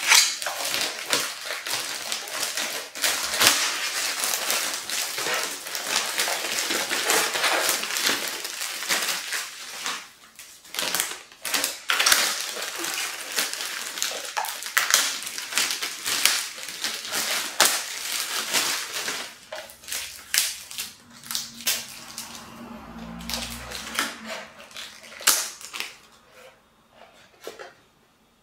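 Clear plastic wrap crinkling and crackling as it is peeled off a new skateboard's deck and trucks, dense at first, then thinning out and dying away near the end.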